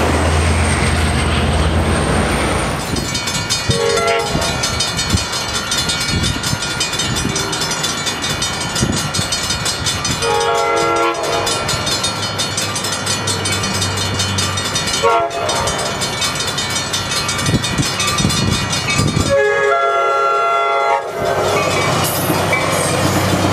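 A diesel locomotive runs past with a steady rumble. After a cut, an approaching Coaster commuter train sounds its horn in four blasts: a short one, one about a second long, another short one and a longer one near the end, over a steady high ringing. Near the end the train's rumble comes back as it passes close.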